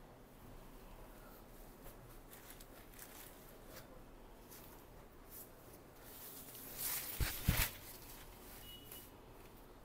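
Sarees being unfolded and spread on a table, the fabric rustling faintly, with one louder swish and two soft thumps about seven seconds in as a saree is flipped open.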